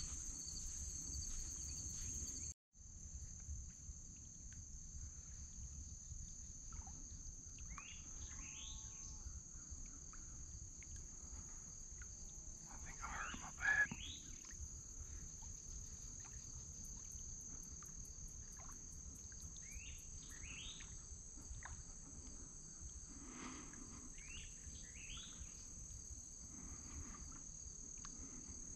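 Steady high-pitched outdoor insect chorus with scattered short bird calls, one louder call a little before halfway. The sound cuts out for a moment about two and a half seconds in.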